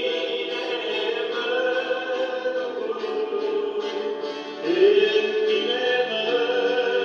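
A choir singing a slow religious song in long held notes, growing louder about two-thirds of the way through.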